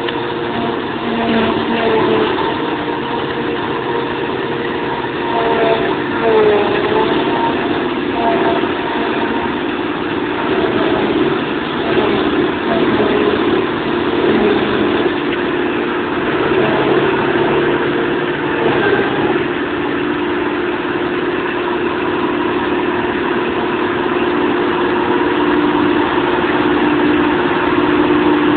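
Claas Jaguar 690 SL forage harvester running steadily under load as it chops crop and blows it through its spout into a trailer, with the tractor pulling the trailer running alongside. The drone holds a steady hum throughout.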